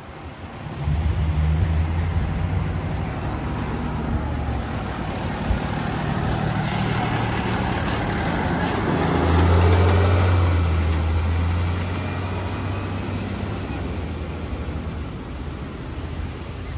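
The diesel engine of a 2012 Pierce Quantum fire engine drives past. Its low rumble grows louder as it approaches, is loudest about ten seconds in as it goes by, then fades as it moves off down the road.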